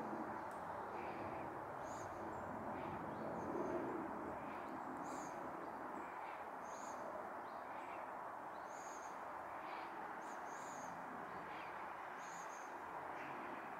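Faint, short, high bird chirps recur about every second or two over a steady outdoor background noise.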